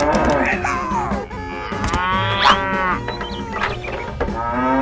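Cattle mooing, several long moos in turn, over background music.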